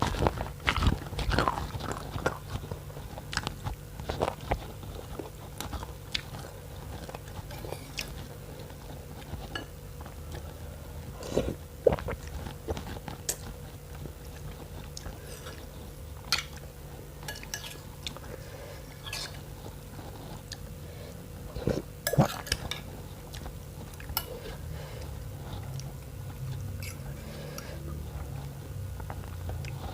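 A person eating spicy noodle soup with bones, close to the microphone: chewing and biting, with scattered short clinks of cutlery against the dish, over a steady low hum.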